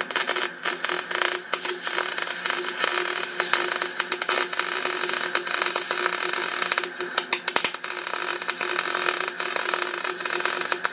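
Wire-feed (MIG) welder arc running a continuous bead on steel plate: a steady, dense crackling sizzle, with a steady hum underneath.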